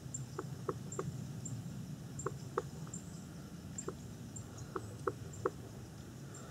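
Woodpecker pecking at a tree: about nine sharp wooden knocks, irregularly spaced and mostly in quick groups of two or three. Faint high ticks come about twice a second throughout.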